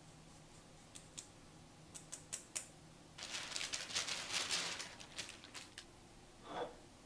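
A few light clicks, then a disposable plastic piping bag crinkling loudly for a couple of seconds as it is handled. A short scrape follows near the end.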